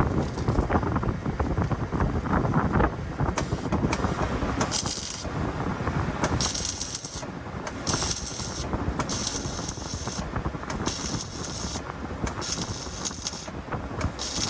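MIG welding arc crackling in short stitch welds on a cracked steel frame: about seven bursts of under a second each, starting about four seconds in and spaced a second or so apart. Before the first stitch, wind rumble on the microphone.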